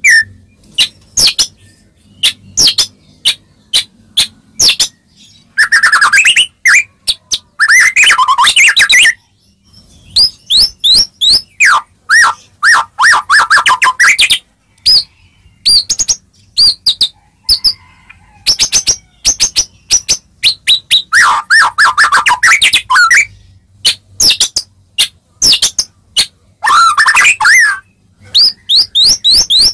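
White-rumped shama (murai batu) singing loudly, with runs of sharp rapid ticking notes alternating with warbled, whistled phrases. It is a shama song recording used as a lure to provoke other shamas to answer.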